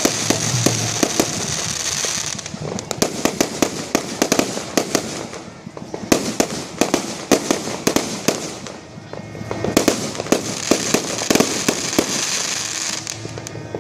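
Fireworks going off in a dense, uneven barrage of sharp bangs and crackles, with a hissing spray in stretches; the barrage thins briefly about six seconds in and thickens again from about ten seconds.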